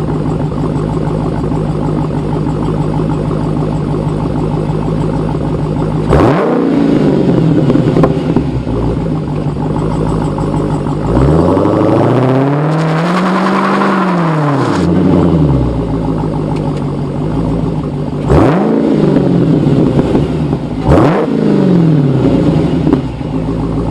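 V8 car engine idling steadily, then revved: a quick blip about six seconds in, a longer rev that climbs and falls back in the middle, and two more short blips near the end.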